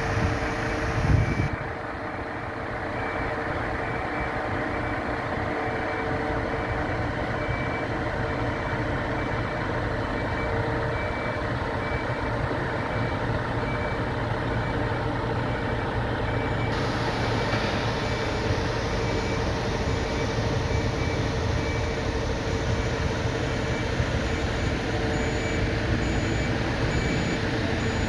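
Concrete truck reversing: its diesel engine runs steadily under the evenly repeating beeps of its backup alarm. A short low thump sounds about a second in.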